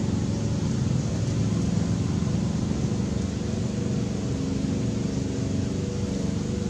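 A steady low mechanical drone, like a running engine, holding at an even level throughout.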